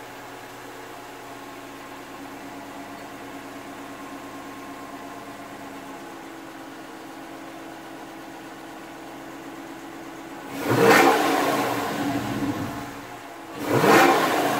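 2015 Dodge Challenger R/T's 5.7-litre HEMI V8 idling steadily through its stock exhaust with QTP electric cutouts, then revved twice near the end, each blip rising sharply and settling back to idle.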